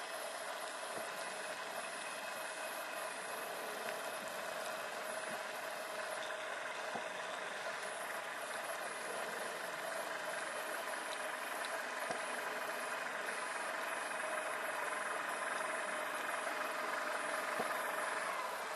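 Steady machine-like hum and hiss with a few scattered faint ticks, picked up by a camera underwater.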